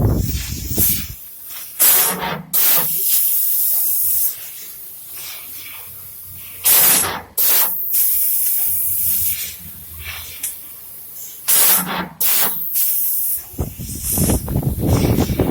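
Loud hissing of a jet of gas or compressed air, switching on and off several times in separate bursts of about half a second to two seconds, with a quieter hiss between them.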